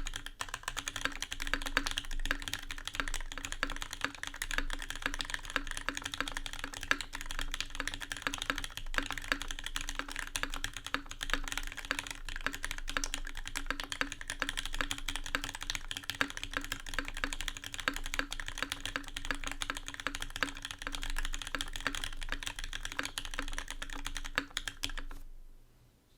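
Fast continuous typing on a Kyuu 65% aluminium mechanical keyboard with a brass plate and vintage Cherry MX Black linear switches: a steady rattle of keystrokes that stops shortly before the end. The owner considers the undampened board in need of dampening.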